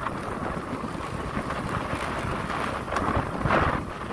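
Wind buffeting the microphone over a low rumble of travel along a dirt road, with a brief louder gust about three and a half seconds in.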